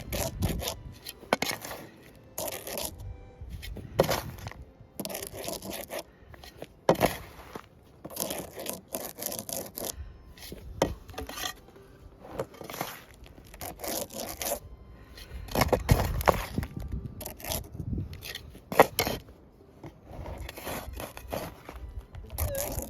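Digging in stony ground with a hand tool to recover a metal detector target: irregular scrapes and strikes of metal on soil and rock, with gravel being raked aside.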